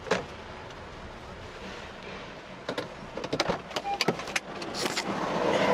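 Clicks and knocks inside a parked car, with a short beep about four seconds in; near the end the street noise swells as a car door is opened.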